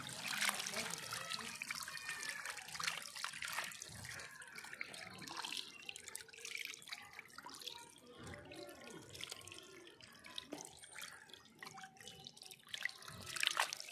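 Goldfish crowding and gulping at the water surface: a constant patter of small splashes, slurps and drips, busiest in the first few seconds and again near the end.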